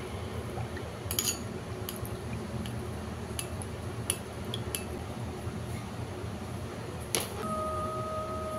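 Metal spoon stirring sauce in a glass bowl, clinking against the glass a few times, over a steady low hum. About seven seconds in comes a sharp knock, then a steady beep-like tone that lasts about a second and a half.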